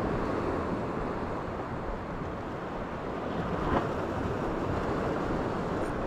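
Sea surf washing steadily on the shore, with wind noise on the microphone. One faint short click about two-thirds of the way through.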